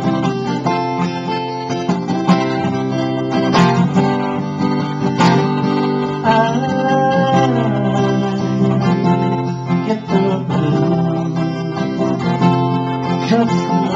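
Acoustic guitar strummed in a steady rhythm under a harmonica played from a neck rack, holding and bending notes, as the instrumental break of an upbeat blues-rock song.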